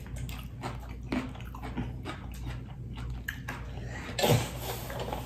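Close-miked chewing and biting: wet mouth clicks and smacks as a person eats, with the loudest bite a little after four seconds in.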